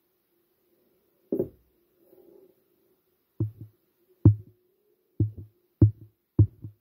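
Dull thuds, each followed at once by a lighter one: one about a second in, then a run of them roughly once a second from about halfway, over a faint steady hum.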